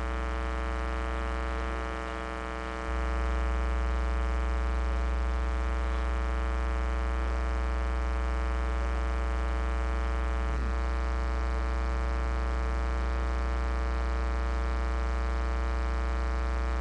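Steady electrical mains hum and buzz in the audio feed: a low hum with many even overtones above it, stepping louder about three seconds in.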